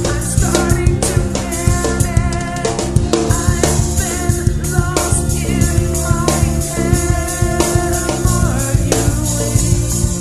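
A song's instrumental passage: a drum kit with kick and snare keeps a steady beat under held bass and instrument notes, with no vocals.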